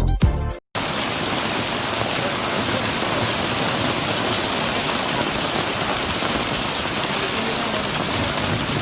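Hail and heavy rain coming down in a steady, dense patter. The first half-second is the tail of dance music, which cuts off abruptly.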